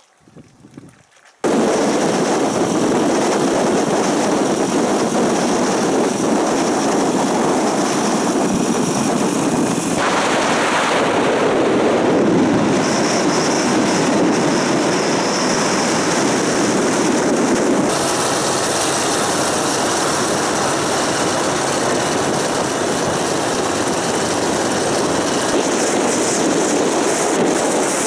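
Loud, steady rushing of wind and road noise from a moving car, starting suddenly about a second and a half in; its tone shifts abruptly about ten and eighteen seconds in.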